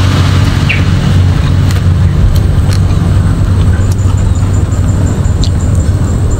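A steady low engine hum, like a motor vehicle idling close by, with a few faint short clicks over it.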